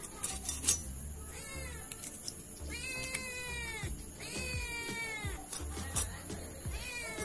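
A cat meowing repeatedly: about four drawn-out meows that rise and fall in pitch, the two loudest in the middle. Short scrapes and clicks of fish being scaled against a boti blade sound between them.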